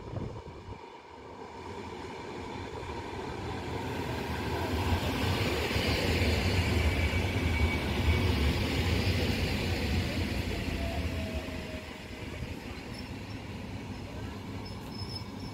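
EN57AL electric multiple unit pulling into the platform: the rumble of its wheels and running gear builds as it rolls past, peaks, then eases as it brakes to a stop, with a brief falling whine as it slows.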